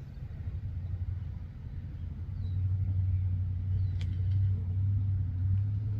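Low, steady motor-vehicle engine rumble, louder from about two and a half seconds in, cutting off abruptly at the end.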